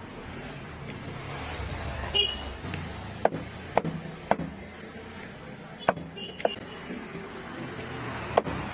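Large knife chopping cobia into chunks, striking a wooden cutting block with six sharp knocks: three in quick succession about half a second apart, then two, then one near the end.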